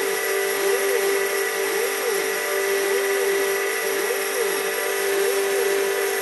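CNC mill cutting copper off a printed circuit board. The spindle runs at a steady pitch. The stepper motors' whine rises and falls in pitch about once a second as the axes speed up and slow down on each move.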